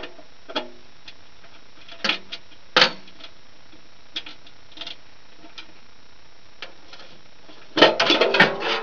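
Scattered metal clicks and taps of a wrench and loosened bolts on a DR field-and-brush mower's belt cover, then a short burst of rattling clatter near the end as the cover is lifted off.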